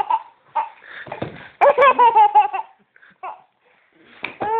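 A small child laughing in runs of quick, high-pitched giggles: a long run about a second and a half in, and another starting near the end.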